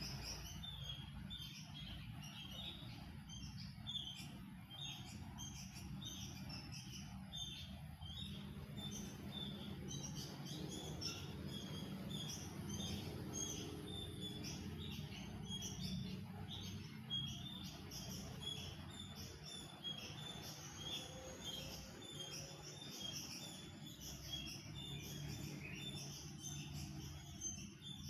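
A group of small aviary birds chirping, many short high calls tumbling over one another without a break, over a steady low background rumble.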